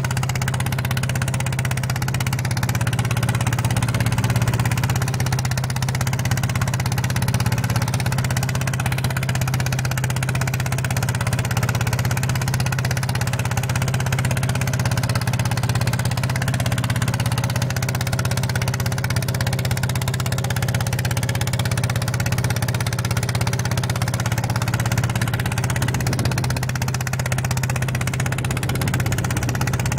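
Small red ride-on mini tractor's engine running steadily under load as it pulls a disc plough through wet soil.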